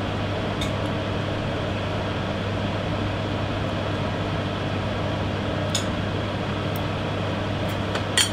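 Steady hum and rush of commercial kitchen ventilation, with a few light clinks of porcelain plates and utensils, the sharpest near the end.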